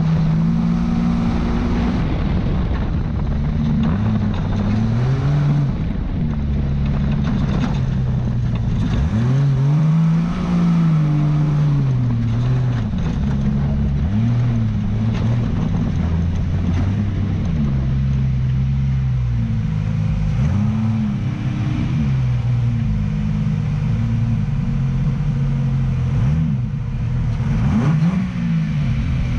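Ultra4 4600-class off-road race car's engine heard onboard while driving a rough dirt trail, its pitch rising and falling again and again with the throttle, over a steady rush of road and wind noise.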